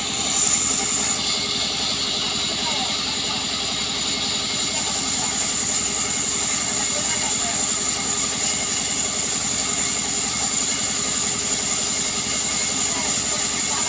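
Sawmill saw running steadily as a log is fed through it: an even mechanical drone with a constant high whine.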